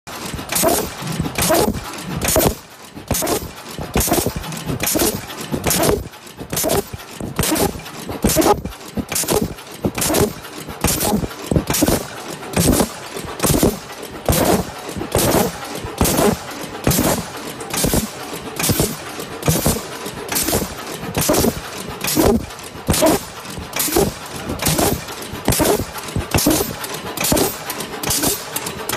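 MD-FT86 tea bag mesh-roll tagging machine running, its mechanisms clacking in a fast, steady rhythm of sharp strokes.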